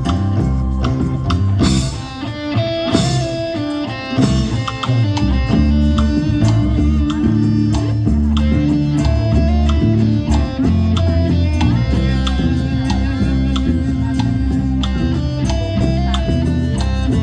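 Live instrumental ensemble playing an arrangement of a Brazilian popular song, with sustained notes over a steady percussive beat.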